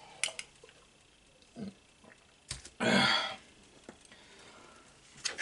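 A few light clicks and taps of small tools and parts being handled on a metal tool cart, with a short breathy vocal sound about three seconds in, the loudest thing heard.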